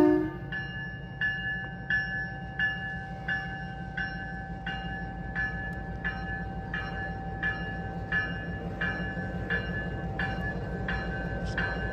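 Diesel locomotive's bell ringing steadily, about one strike every 0.7 s, over the low rumble of the running engine as the train departs. The horn's last chord cuts off right at the start.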